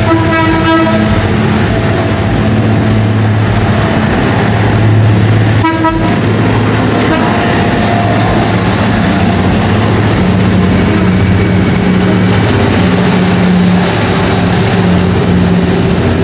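Philippine National Railways diesel commuter train passing close by: a steady loud run of engine and wheels on the rails. Two short horn toots come near the start and about six seconds in.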